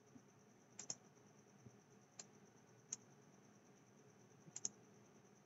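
Faint computer mouse clicks, a handful of single clicks and quick pairs, over near silence.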